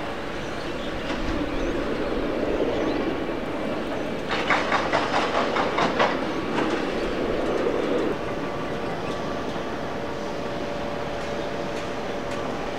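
Steady rolling rumble with a spell of rapid, rhythmic clicking about four to six seconds in: the clatter of wheels running over joints.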